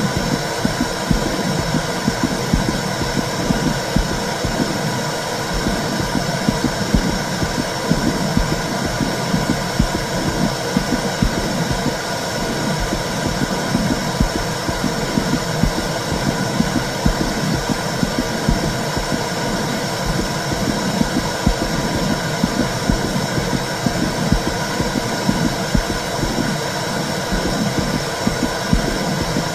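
Womb sound for soothing a baby: a steady whooshing hiss over a low pulsing rumble, like a heartbeat and blood flow heard from inside the uterus.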